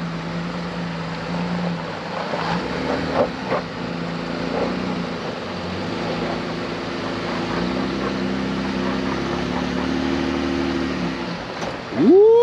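Jeep WJ's engine running at low crawling revs over rocky ruts, its note rising and falling with the throttle, with a few sharp knocks about two to five seconds in. Near the end a loud whoop rises and falls.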